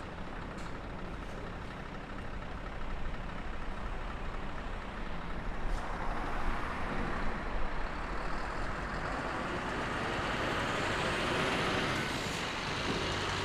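Pacific National NR class diesel-electric locomotives (GE Cv40-9i) running light at low speed: a steady low engine drone with a rushing noise that grows louder about halfway through, and faint high squeals near the end.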